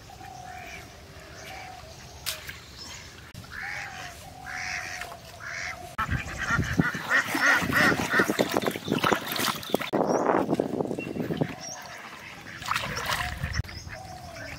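Domestic ducks quacking at intervals. Around the middle, several seconds of loud splashing as a whole fish is scrubbed by hand in shallow pond water.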